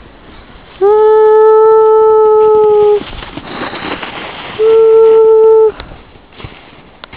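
A horn-like sound blows two long, steady, loud notes at one pitch, the first about two seconds long and the second about a second, with a burst of rushing noise between them.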